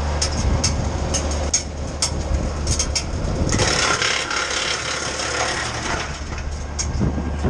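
Titan wood chipper chipping pine branches, with sharp cracks and clicks of wood being cut over a steady low engine drone. From about three and a half to six seconds in, a denser rush of shredding noise rises as more wood goes through.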